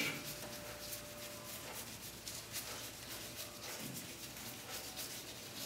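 Faint, soft strokes of a paintbrush applying sanding sealer to a turned wooden workpiece.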